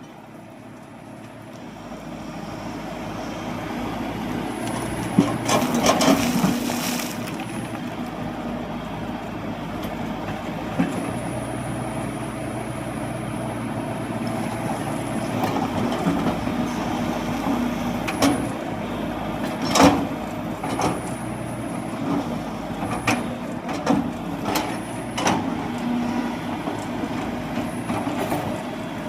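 A Hyundai heavy machine's diesel engine running, rising in level over the first few seconds and then holding a steady hum. A high whine comes and goes, and sharp knocks sound at intervals.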